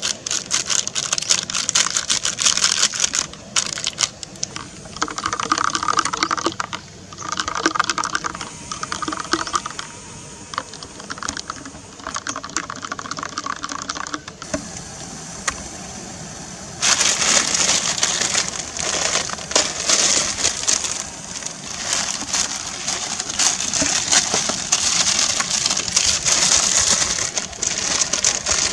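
Plastic seasoning sachets crinkling as they are torn open and emptied, with light clicks. Just past halfway this gives way abruptly to water bubbling at a rolling boil in a pot of instant noodles.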